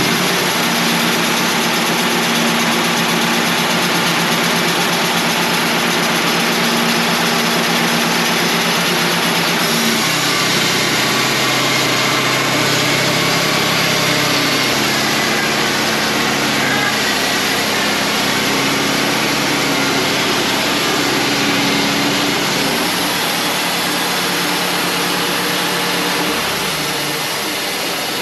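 Wood-Mizer LT35 hydraulic portable sawmill running steadily, its band blade sawing through a knotty white pine log. The engine's tone shifts about ten seconds in and again near the end.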